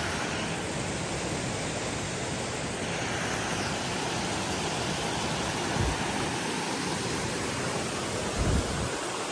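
Rushing water of a mountain creek and waterfall: a steady, even roar. Twice, about six and eight and a half seconds in, a brief low bump.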